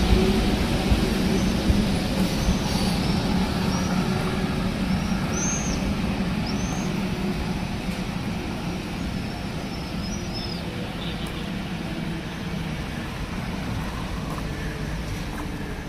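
Street traffic: a vehicle's engine rumbling nearby and slowly fading away, with a few short high bird chirps in the first two-thirds.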